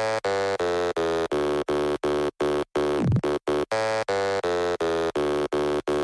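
Electronic background music: a synthesized tone pulsing in short, evenly spaced notes about three times a second, with a brief falling sweep about three seconds in.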